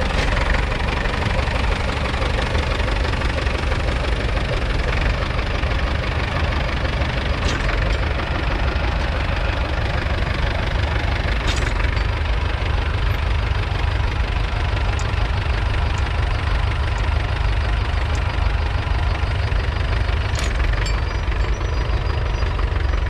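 The 2.3-litre four-cylinder diesel engine of a 1968 International Harvester B275 tractor running steadily.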